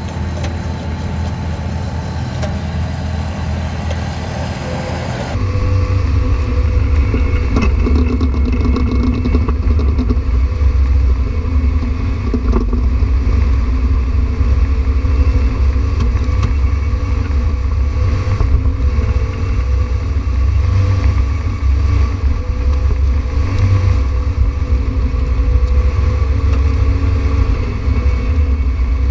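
Bobcat T190 compact track loader's diesel engine running steadily as it pulls a soil conditioner through infield dirt. About five seconds in the sound turns louder and deeper, heard close up from on the machine.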